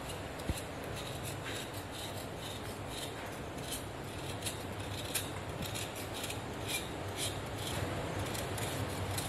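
Knife blade scraping shavings off a block of jaggery, a run of short, irregular scrapes over a steady low hum.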